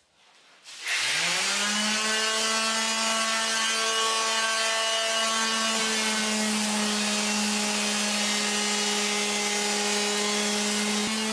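Handheld electric sander switched on about a second in, its motor spinning up in pitch and settling into a steady hum as it sands old wooden floorboards, the sandpaper rubbing over the wood.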